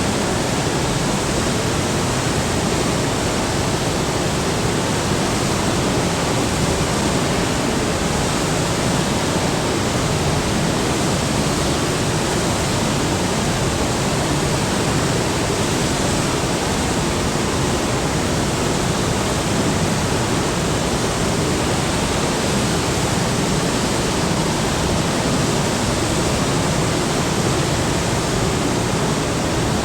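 Heavy waterfall: a steady, unbroken rush of falling water.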